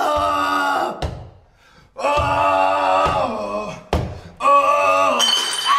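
A voice in three long, drawn-out vocal phrases, held and bending in pitch, with short silent gaps between them and a brief click about four seconds in.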